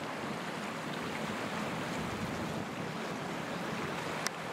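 Steady rushing noise of wind and waves, with one brief click about four seconds in.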